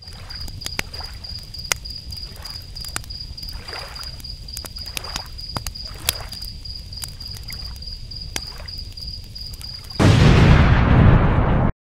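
Ocean waves washing on a beach, with a thin steady high-pitched tone and scattered clicks over them. About ten seconds in, a loud cartoon explosion blast takes over and cuts off suddenly.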